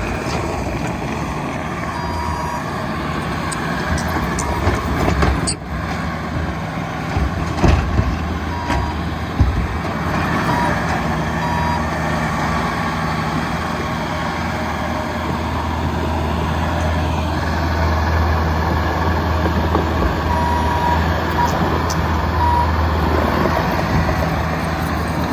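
Bobcat T740 skid steer's diesel engine running steadily under work, with its backup alarm beeping in short spells. A few clunks sound in the first half, and the engine grows stronger in the second half.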